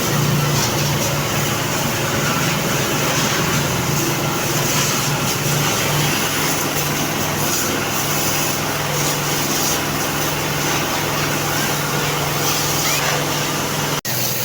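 Pressure washer running steadily: a constant motor hum under the loud hiss of the water jet spraying a motorcycle. The sound drops out for an instant near the end.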